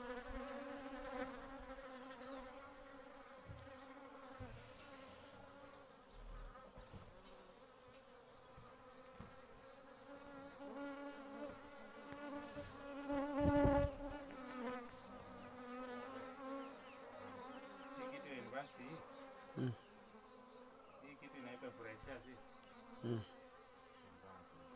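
Honeybees buzzing at close range: a steady, wavering hum of wingbeats that swells loudest about halfway through. A few soft ticks come near the end.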